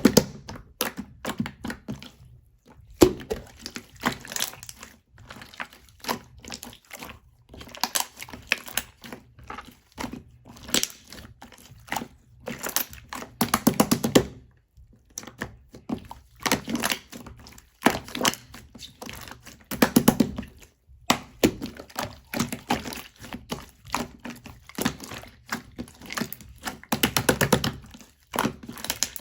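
Soap being cut and crushed: crisp cracks and thunks in quick clusters every second or two, with short pauses between them.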